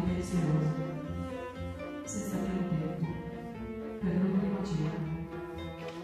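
Background music on bowed strings: a slow, low cello line carries it.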